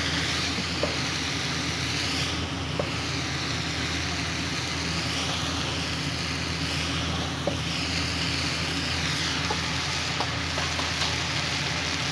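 Rice and vegetables sizzling in a hot pan while being stirred and tossed with a spatula, in sweeping swishes with light taps and scrapes of the spatula against the pan, over a steady low hum.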